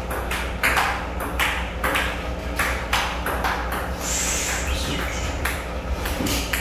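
Table tennis ball in a rally, a quick run of sharp clicks as it strikes the paddles and bounces on the table, two or three a second, over a steady low hum.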